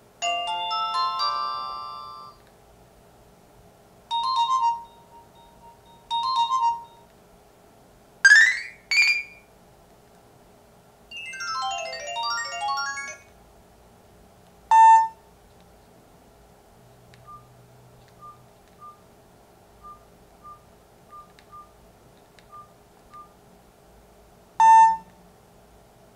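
Nokia 3310 (2017) ringtones and alert tones played one after another with pauses: a short fading melody, two brief chimes, two quick rising sweeps, a fast run of notes and two single dings, with faint short beeps in the quiet stretch between them.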